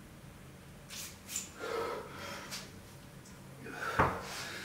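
A man breathing hard and gasping with effort during a sledgehammer lever hold. About four seconds in there is a single heavy thump as the weights are set down on the floor.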